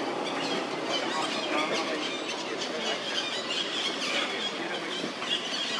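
Monkeys squealing: a string of short, high-pitched calls that bend down in pitch, repeated over a busy outdoor background.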